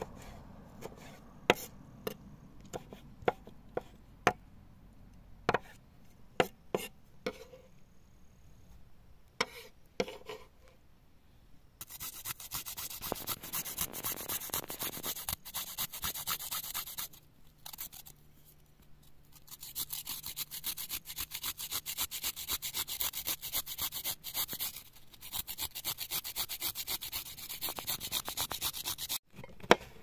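Kitchen knife chopping tomatoes on a wooden cutting board: single sharp knocks, a few a second, for about the first ten seconds. Then a flat hand grater rasping, grating a carrot over a salad bowl in fast scraping strokes, in two long runs with a short pause between them.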